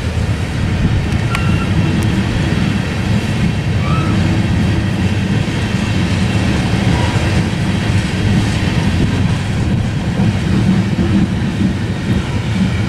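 Freight train of covered hopper grain cars rolling past, its steel wheels making a steady noise on the rails.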